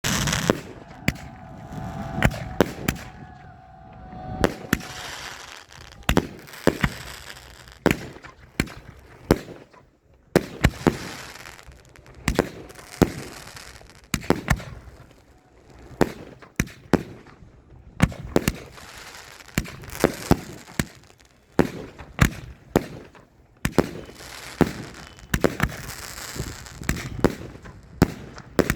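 Fireworks display: a long, irregular run of sharp bangs from bursting shells, several in quick succession at times, with crackling between the bangs.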